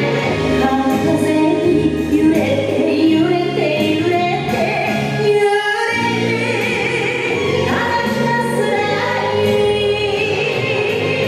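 Recorded dance music with a woman singing a Japanese song over instrumental accompaniment, with a brief drop in the music about halfway through.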